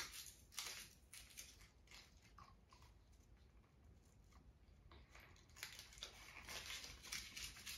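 Faint crinkling and small clicks of a foil chocolate wrapper being unwrapped by hand, near silence in between.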